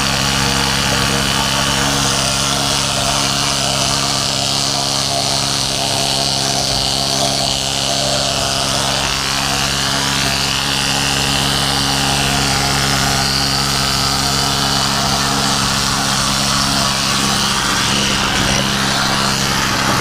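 Pneumatic needle scaler running continuously, a dense steady rattle, over the steady drone of an engine.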